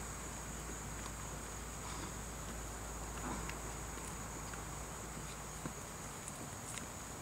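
Steady high-pitched insect chorus, with a few faint ticks and soft thuds from players moving on the grass.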